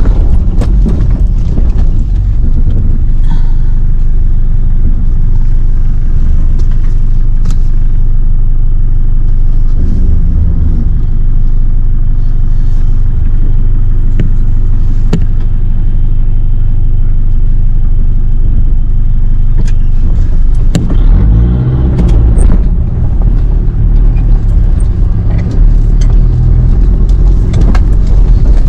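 Off-road 4x4 crawling up a rocky track: a steady low rumble of engine and drivetrain, with scattered knocks and rattles as the wheels go over rocks.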